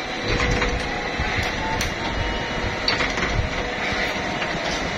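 Soap-making machinery running, a steady mechanical clatter with irregular sharp clicks and knocks.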